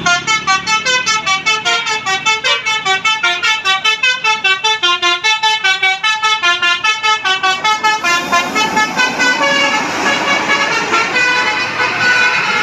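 Bus telolet musical air horn playing a fast tune of short, separate notes at about five or six a second, jumping up and down in pitch; from about eight seconds in the notes run longer and overlap.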